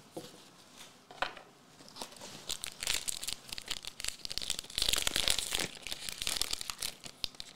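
Foil wrapper of a One Piece Card Game Paramount War booster pack crinkling and tearing as it is opened by hand, starting about two seconds in and loudest near the middle.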